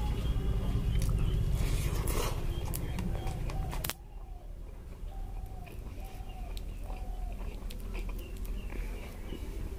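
A hand squishing and mixing rice with dal on a plate: soft wet sounds with small clicks. About four seconds in, the sound drops abruptly, and short calls from an animal in the background repeat about once every 0.7 s.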